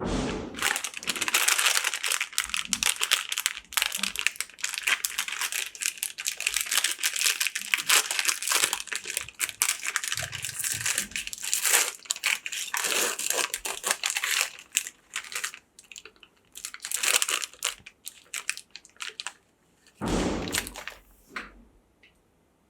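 Crinkling and crunching of a packaged butterscotch ice cream cone being worked by hand: a dense crackle of sharp clicks for about fifteen seconds, then shorter separate bursts, one more near the end.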